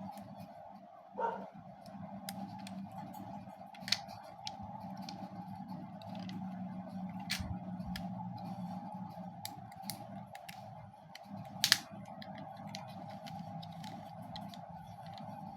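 Scattered sharp clicks and knocks of hard plastic as a cheap Beyblade top is worked onto its launcher, which is stuck and stiff to fit, the loudest click about three-quarters of the way through. A steady hum runs underneath.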